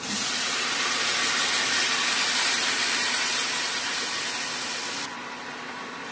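Loud sizzle as freshly boiled, still-wet broccoli hits the hot oil of a stir-fry pan, starting suddenly as it is tipped in. About five seconds in it drops abruptly to a quieter steady hiss.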